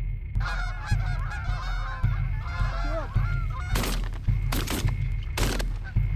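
A flock of geese honking and calling over one another. Then three shotgun shots, a little under a second apart, as the birds come into the decoys.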